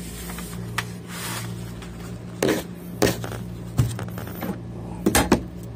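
A few sharp knocks and scrapes as a pineapple and a kitchen knife are handled on a tabletop, the knocks clustered in the second half, over a steady low hum.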